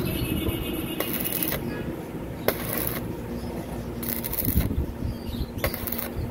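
Electric arc of a stick welder crackling and sizzling as it welds a crack in a motorcycle's steel frame. The crackle comes and goes in spells of about a second or less, over a steady low hum.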